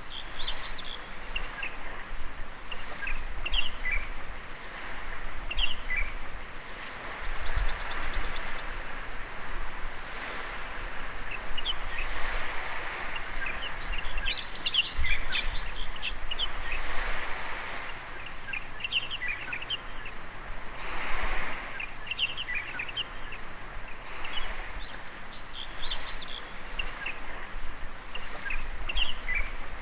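Small waves washing up on a beach, the surf swelling and fading every few seconds, with birds chirping throughout in short high calls and a quick trill of rapid notes about eight seconds in.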